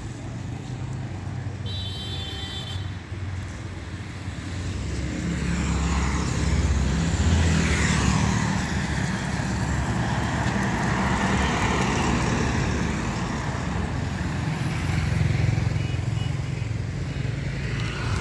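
Road traffic passing: the engines of trucks and motorbikes, rising in loudness from about five seconds in, with peaks around seven and fifteen seconds. A brief high-pitched beeping about two seconds in.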